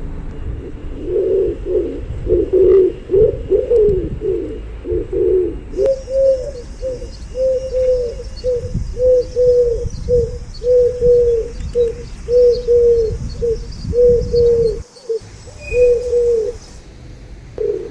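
Pigeons cooing: rough, overlapping coos at first, then a regular run of short coos about two a second.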